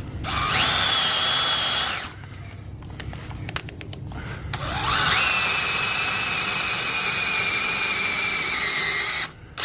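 Electric drill running an 11/64-inch bit into a cast-iron Chevy 292 cylinder head in two runs. The first lasts about two seconds. After a short pause with a few clicks, the drill spins up again with a rising whine about halfway in and runs for about four seconds, its pitch sagging slightly as the bit loads up before it stops.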